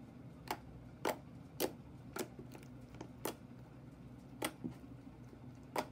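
Glossy clicky slime pressed and poked by hand, giving sharp little clicks and pops, about ten of them, unevenly spaced roughly every half second, over a faint steady low hum.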